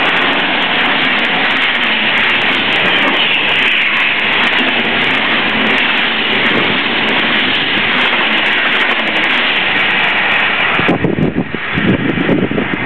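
UIC-X passenger coaches of a locomotive-hauled train passing at speed close by: a loud, steady rush of wheels rolling on the rails. About eleven seconds in the last coach clears, and the sound falls to uneven gusts of wind buffeting the microphone in the train's wake.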